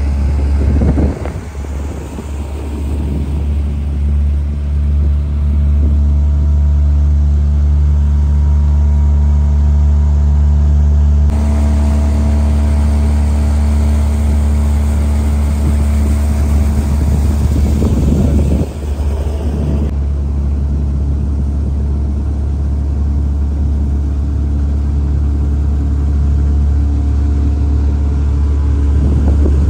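Outboard motor of a small open fishing boat running steadily at cruising speed, a loud constant drone, with a few brief rushes of wind or water noise.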